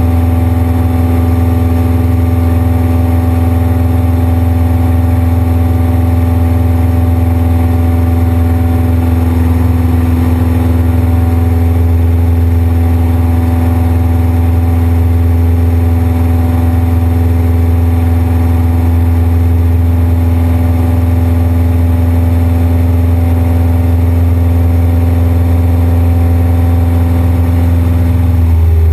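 Cessna 172's piston engine and propeller droning steadily in flight, heard from inside the cockpit as a loud, even low hum. The note drops slightly at the very end.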